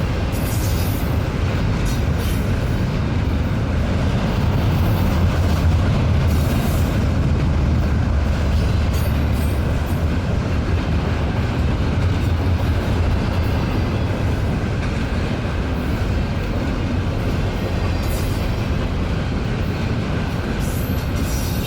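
BNSF intermodal freight train rolling past at close range: a steady, loud rumble of steel wheels on the rails.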